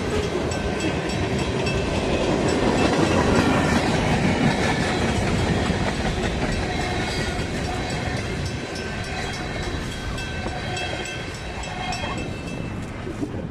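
Freight train's tank cars and loaded centerbeam flatcar rolling past on steel wheels. The sound grows louder over the first few seconds, then slowly fades.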